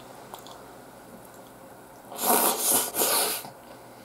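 Close-miked eating: faint chewing and small mouth clicks, then a little over two seconds in three loud, rough rushes of breath-like noise in quick succession.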